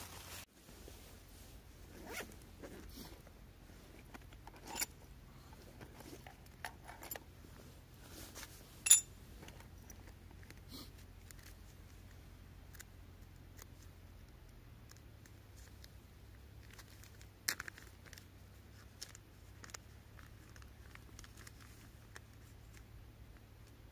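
A zipper pulled in short strokes among scattered small handling clicks and rustles; the sharpest rasp comes about nine seconds in, another near the end.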